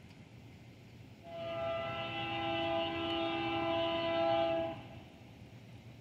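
Locomotive air horn sounding one long blast, several notes held together as a steady chord, starting about a second in and lasting about three and a half seconds.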